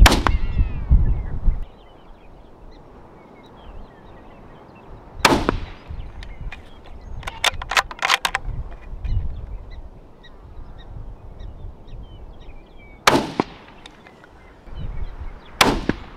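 Four sharp rifle shots from a Ruger 77/17 bolt-action varmint rifle, fired several seconds apart, with a quick run of bolt clicks midway as the rifle is worked. Wind buffets the microphone in the first second or so, and faint chirping calls sound in the background.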